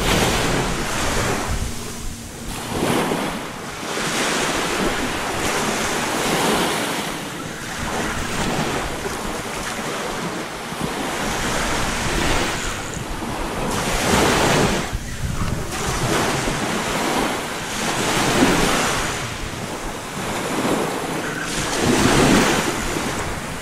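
Small surf waves breaking and washing up the beach, swelling every few seconds, with wind buffeting the microphone.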